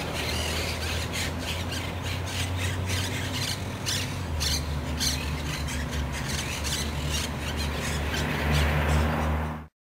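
Monk parakeets giving a rapid run of short, harsh squawks over a steady low hum; the sound cuts off suddenly near the end.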